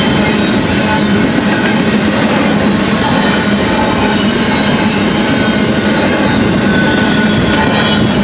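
A long freight train of double-stack intermodal well cars rolling past close by, a loud, steady noise of steel wheels running on the rails.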